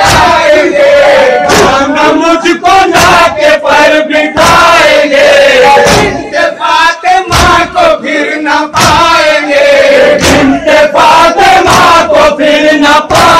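Group of men chanting a Muharram nauha (lament) in unison, with repeated hand strikes on their chests (matam) beating time, about twice a second.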